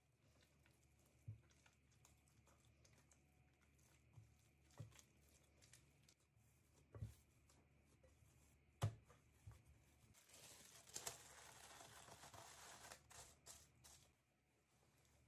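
Faint sounds of hands kneading brioche dough in a glass bowl: a few soft knocks and thumps against the bowl, the loudest about nine seconds in. Then plastic cling film crinkles and rustles for about four seconds as it is stretched over the bowl.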